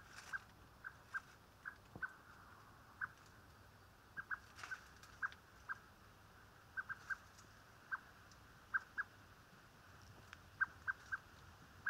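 Blackbird calling: short, sharp single notes repeated irregularly, often in quick pairs or threes with gaps of a second or more between.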